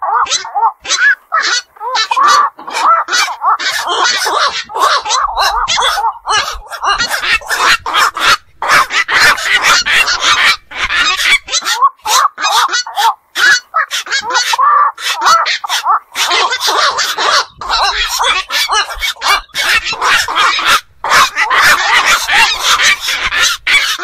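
Black-crowned night herons calling: many short calls in quick succession with only brief gaps.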